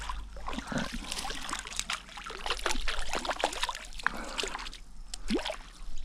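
A small hooked brown trout thrashing and splashing at the surface of shallow river water, in quick irregular splashes, as a landing net is dipped in and lifted out dripping.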